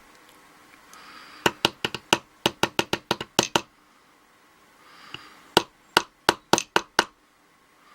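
Rapid sharp taps on a Schlage lock cylinder to knock a stuck spring out of its pin chamber: about a dozen taps a little over a second in, then about eight more near the end, roughly five a second.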